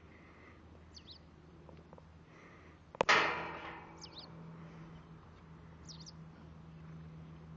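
A horse close by blows out hard through its nostrils once, about three seconds in: a sudden rush of air that fades over about a second. Small birds chirp briefly in the background a few times.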